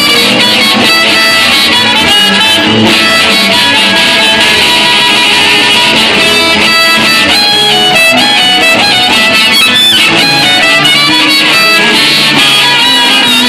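Live blues band playing loudly: harmonica over electric guitar, bass guitar and drums.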